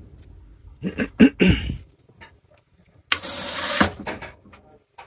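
Sink tap in an Amtrak sleeper roomette: a few knocks of handling about a second in, then water gushing from the tap for under a second, starting and stopping abruptly.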